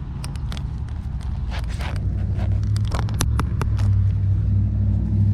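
Road traffic: the low engine rumble of a motor vehicle passing on a nearby street, growing louder from about two seconds in. Scattered short clicks sound over it.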